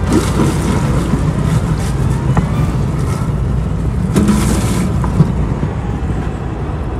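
Water vending machine's nozzle running water into a plastic gallon jug: a steady rush of water with a low rumble beneath it.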